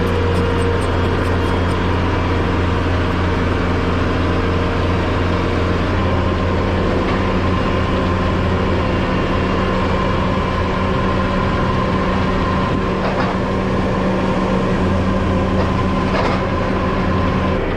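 Bobcat E20 mini excavator's diesel engine running steadily. Its note shifts slightly about six seconds in, and two short knocks come in the second half.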